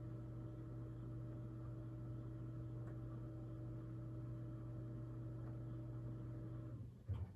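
Steady electrical mains hum, a low buzz with a fainter higher tone over it, that cuts off suddenly shortly before the end, followed by a brief knock.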